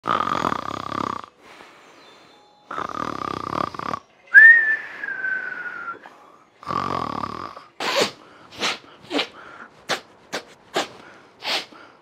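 A person snoring: three long snores, with a whistling breath that slides down in pitch between the second and third, then a run of about seven short, quick snorts near the end.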